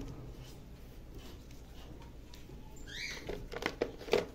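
A stack of black plastic plant pots being picked up and handled: a short squeak about three seconds in, then several light plastic clicks and knocks.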